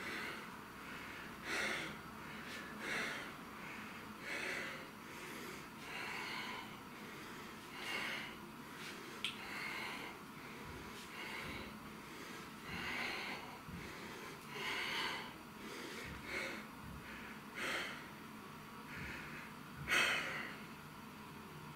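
A man breathing hard in short, rhythmic exhales, about one every one and a half to two seconds, from the exertion of dumbbell hammer curls; the loudest exhale comes near the end.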